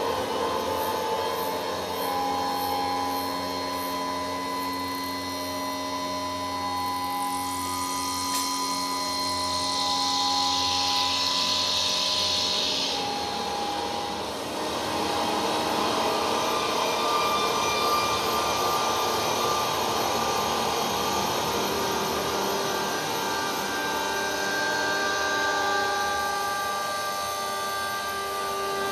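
Dense electroacoustic drone of many held tones layered together, with a high hissing band that swells about seven seconds in and fades away around thirteen seconds. The texture of a piece built from a room's resonances.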